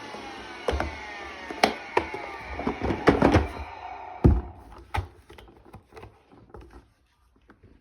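A vacuum motor winding down after being switched off, its whine falling in pitch and fading away over three or four seconds. Several knocks and clunks of the machine being handled come through it, the loudest about four seconds in, then only faint light ticks.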